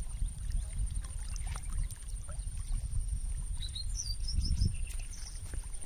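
Wind rumbling on the microphone over open lake water, with a bird giving a quick run of short high chirps about four seconds in. A faint, steady high-pitched tone runs underneath.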